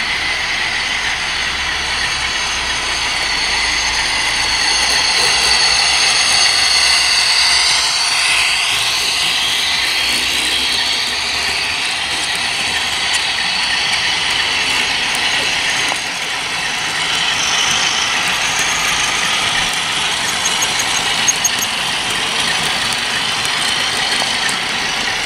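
OO gauge model freight train running past on garden track, a long rake of hopper wagons: a steady rolling noise of wheels on rail with a whine that glides down in pitch about eight seconds in, and a few light clicks near the end.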